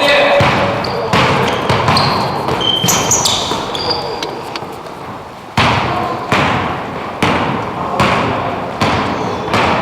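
A basketball bouncing on an indoor court: irregular thuds that echo through the gym, closer together in the second half. Players' voices sound in and between them.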